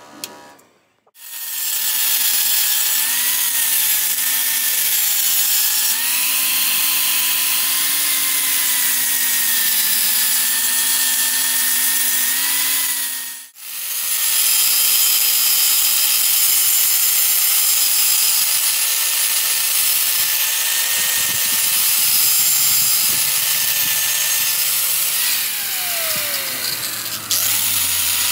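Electric angle grinder with a blue abrasive disc running against a rusty steel sprocket: a steady motor whine over a grinding hiss, the pitch wavering as it is pressed on. It cuts out briefly about halfway through and then runs again.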